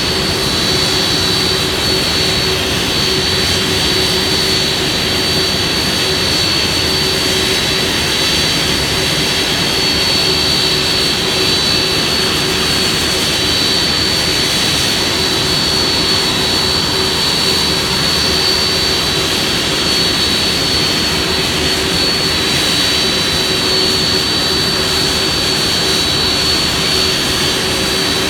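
Boeing 767's twin turbofan engines running at ground idle, a loud, steady jet whine with a high, piercing whistle over a lower hum.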